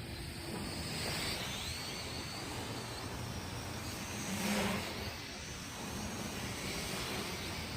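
MJX X600 hexacopter's propellers whining as it flies, the pitch sliding up and down with throttle, loudest about four and a half seconds in as it passes close. There is a low rumble of wind on the microphone.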